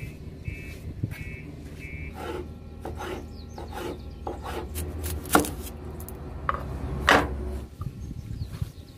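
A cleaver chopping vegetables on a cutting board: a run of taps about twice a second, with two sharper, louder knocks of the blade on the board, one just past the middle and one near the end. A high electronic beep repeats during the first two seconds, over a steady low hum.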